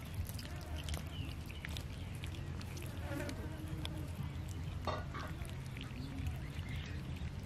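Cats chewing raw chicken: quick, wet clicks and smacks of biting. They run over a steady low hum.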